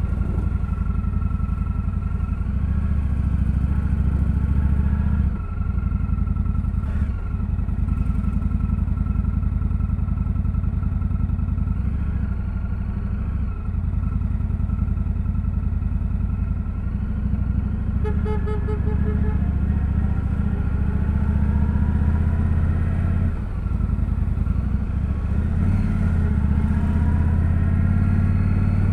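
2025 Indian Scout Sixty Bobber's V-twin engine running through its stock exhaust while riding, the engine note rising and falling, with a few brief dips in loudness as it shifts gears.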